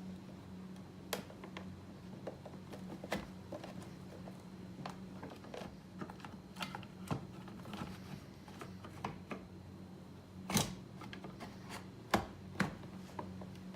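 Irregular plastic clicks and taps as a side-mirror cover is worked and slid onto the mirror housing, with the sharpest knocks near the end, over a steady low hum.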